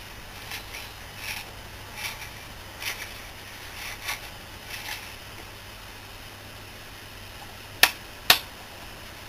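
Scratchy crackles from an old Astor valve radio's speaker as a control on the chassis is turned, a short burst every half second or so for about five seconds. Near the end come two sharp clicks, the loudest sounds.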